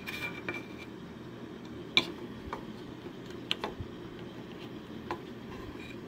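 A few short, sharp plastic clicks and taps as a chip-reading clip is pressed and seated onto a small circuit board, the loudest about two seconds in, over a steady low background hum.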